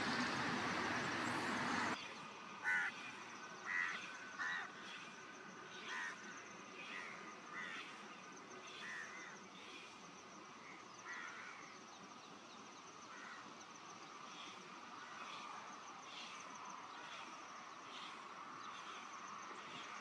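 A steady rushing noise cuts off abruptly about two seconds in, giving way to a quieter background with a string of short, harsh bird calls. The calls are loudest in the few seconds after the cut and grow fainter and sparser after that.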